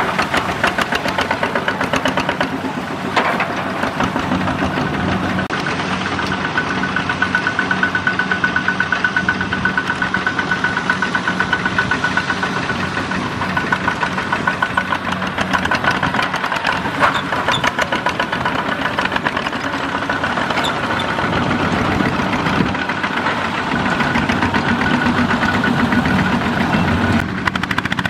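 Several two-wheel walking tractors with Kubota single-cylinder diesel engines running together while pulling trailers: a steady, rapid chugging with a hard diesel knock.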